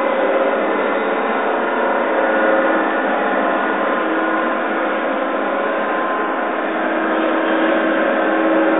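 Steady, dense electronic drone of layered held tones, some slowly swelling and fading, heard through a phone's microphone.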